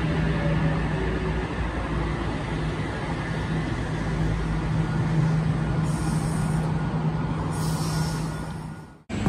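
Electric train running, a steady rumble with a constant low hum, with two short high hisses about six and eight seconds in; the sound fades out near the end.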